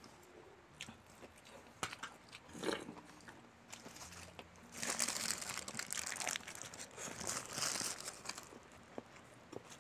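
Close-miked eating sounds: chewing with scattered wet clicks, then, about five seconds in, some three seconds of crisp crackling and crunching from a piece of crispy fried chicken being handled and torn.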